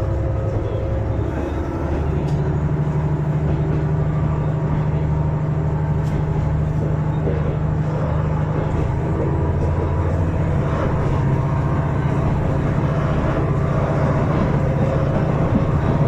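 Inside a passenger train carriage, the train running steadily along the track: a constant rumble of wheels on rail, with a steady low hum from the train's drive setting in about two seconds in.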